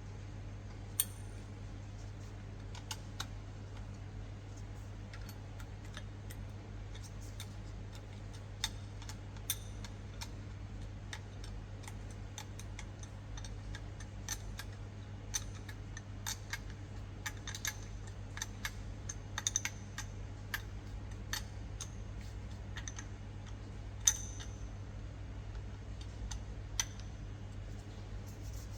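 Scattered light metallic clicks and clinks of a spanner working on bolts as they are done up, over a steady low hum.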